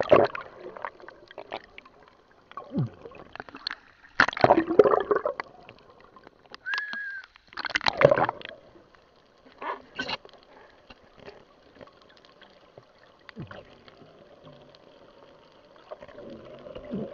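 Sea water sloshing and gurgling, heard from just under the surface, with irregular loud splashes about four times.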